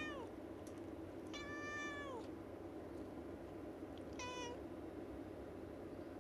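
Calico cat meowing at birds outside the window: a call trailing off at the start, a longer call about a second and a half in that drops in pitch at its end, and a short call about four seconds in.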